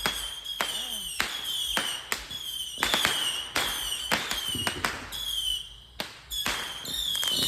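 Consumer firework cake firing a rapid series of shots, about a dozen sharp bangs roughly every half second, each followed by a short whistle that falls slightly in pitch.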